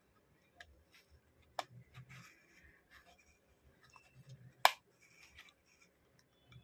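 Small plastic clicks and handling noises from a Philips BT1230 trimmer's housing being worked apart, with two sharp snaps, the louder one about four and a half seconds in.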